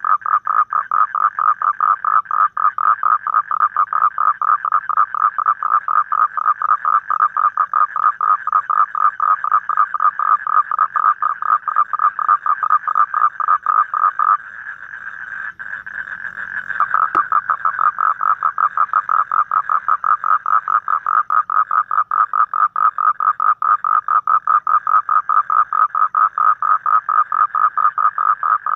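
A toad calling with a loud, rapid, evenly pulsed trill, which stops for about two and a half seconds around the middle and then starts again.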